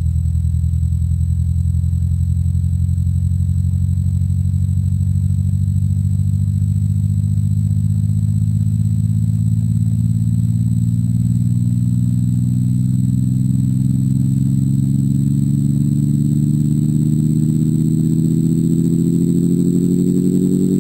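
Sonification of a black hole: a deep, continuous drone with many overtones that slowly rises in pitch.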